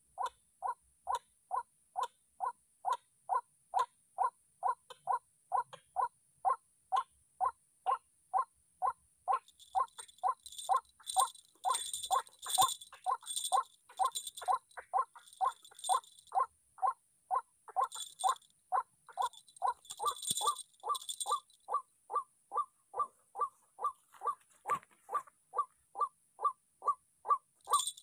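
White-breasted waterhen calling: a monotonous series of short, clipped notes, about two a second, the bird's repeated territorial call as used to lure it to the snare. Bursts of high hiss come and go around the middle.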